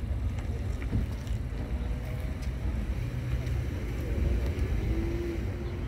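Wind buffeting the microphone: a steady low rumble with no engine note.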